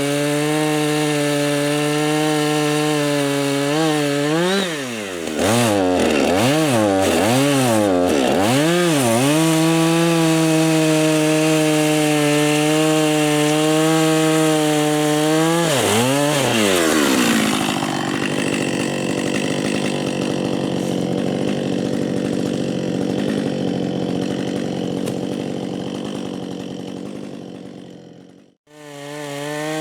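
Two-stroke gas chainsaw running at high revs in wood. Its engine speed dips and recovers several times as it loads up in the cut, then drops lower at about the middle and runs on more quietly. Near the end there is a brief sudden gap before the saw is heard at high revs again.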